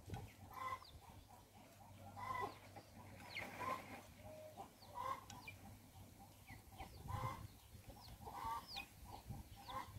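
Chickens clucking, a short call about every second, with short high chirps mixed in.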